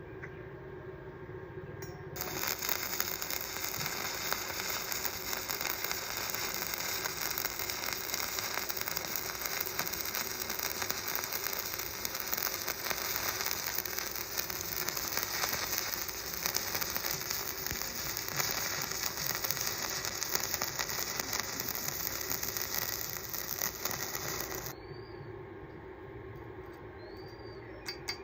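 Stick welding arc crackling and sizzling steadily for about twenty-two seconds, starting about two seconds in and cutting off sharply when the arc is broken, over a steady hum.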